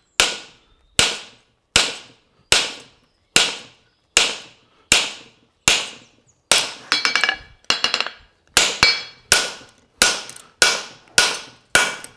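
Farrier's hammer striking a handled fullering tool set in a horseshoe on the anvil, marking the nail crease. Steady metallic blows a little over one a second, each ringing briefly, with a quick flurry of closer strikes about halfway through.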